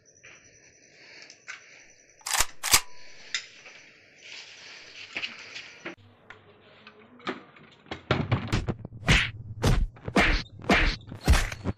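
Two sharp whacks about two and a half seconds in, then, from about eight seconds in, a wooden double door banged on hard and fast, about three blows a second.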